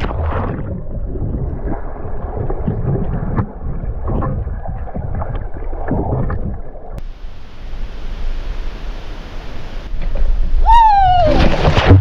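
Muffled underwater sound of the pool water churning around a submerged camera, a dense low rumble with bubbles, a brighter hiss joining about seven seconds in. Near the end comes a short falling hoot, then a loud rush of bubbling water as the swimmer thrashes past.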